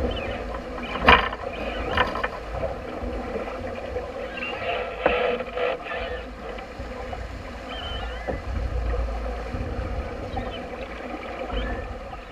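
Sailboat under way: wind buffeting the microphone over water rushing along the hull, with two sharp knocks about a second and two seconds in and faint scattered squeaks.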